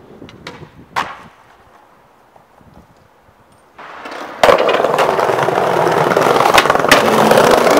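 Skateboard wheels rolling on pavement: a loud, steady rolling rumble that starts about halfway through, with a few sharp clacks from the board. Before it, the sound is quieter, with a single sharp clack about a second in.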